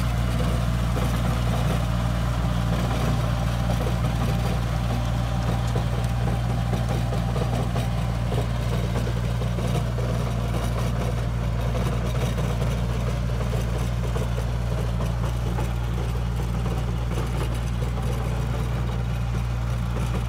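Tractor engine running steadily at an even speed with a low drone, driving a wing harrow.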